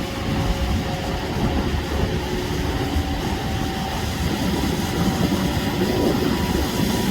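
Heavy surf breaking and washing against the shore in a steady, continuous low rumble.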